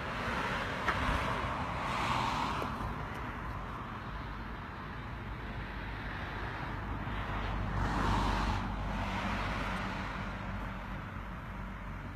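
Road traffic: cars passing on the road, one swelling up and fading about two seconds in and another about eight seconds in, over a steady low rumble.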